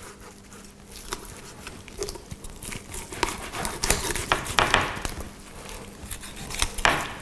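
Filleting knife cutting through the skin and rough comb-like scales of a zander behind the head, giving a run of scraping, crackling strokes, with louder strokes about four seconds in and again near the end.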